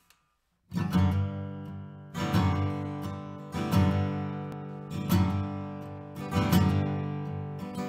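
Background music of strummed guitar chords, one chord struck about every second and a half and left to ring out, starting under a second in.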